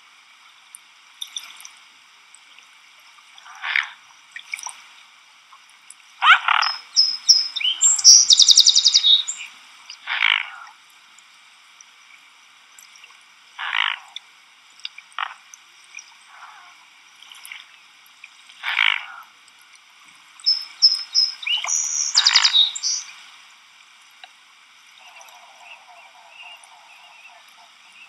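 Frogs croaking in short calls every few seconds, with two spells of a rapid, high-pitched trilled bird call.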